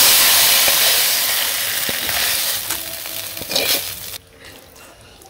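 Hot ash gourd and fish curry sizzling as it is emptied from a hot wok into a steel bowl, with scraping clicks from the spatula against the metal. The sizzle fades slowly and cuts off about four seconds in.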